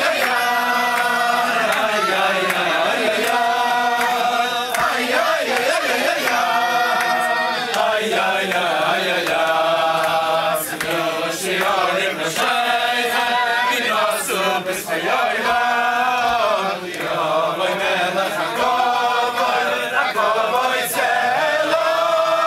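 A crowd of Hasidic men singing together in unison, in held phrases that follow one another without pause.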